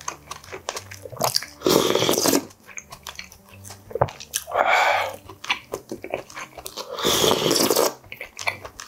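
Slurping spicy fish roe soup broth off a wooden spoon: two loud slurps, about two and seven seconds in, with a softer one midway. Wet chewing and smacking fill the gaps between.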